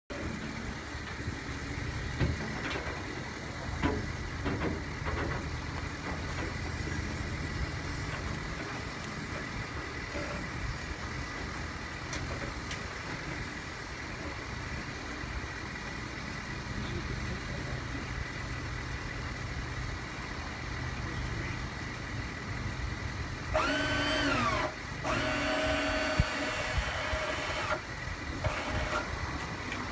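Electric trailer winch motor running in two loud bursts of one to two seconds each, starting about 23 seconds in; the first dies away with a falling whine. Underneath is a steady low hum, with a few knocks in the first few seconds.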